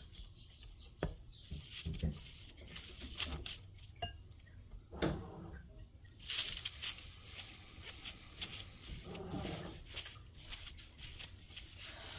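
Hands patting and rubbing a starch-dusted round of tofu cheese on a paper sheet: soft, irregular pats and light rubbing, with a few small clicks.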